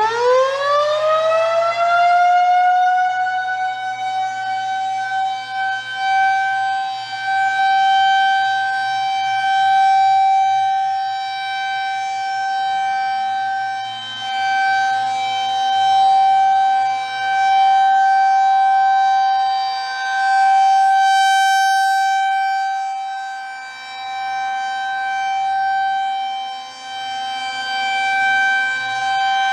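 Federal Signal 2001 rotating outdoor warning siren, finishing its wind-up in the first couple of seconds, then holding one steady tone. Its loudness swells and fades every few seconds as the rotating head sweeps past. This is the siren's monthly test.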